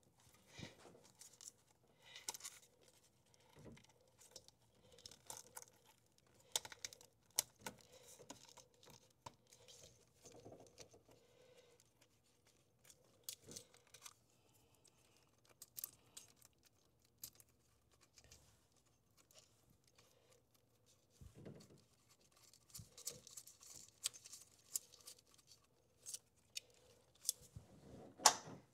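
Faint, scattered clicks, taps and rustling of hand tools and small metal parts being handled while ground wires are refitted on an engine.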